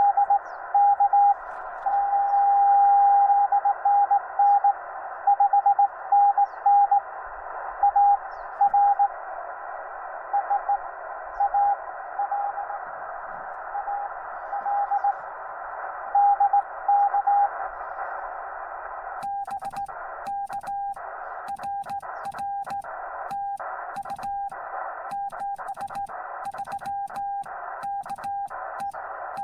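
Morse code (CW) from a Yaesu FT-891 transceiver: a single tone keyed on and off in dots and dashes over steady band hiss. About two thirds of the way in the strong signal stops, and a weaker keyed tone carries on with rapid sharp crackling clicks.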